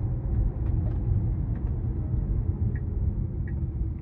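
Road and tyre rumble heard inside the cabin of a 2023 Tesla Model Y, an electric car with no engine note, rolling along a road steadily. Near the end a soft turn-signal ticking starts, about one tick every 0.7 seconds, as the car nears a stop-sign intersection.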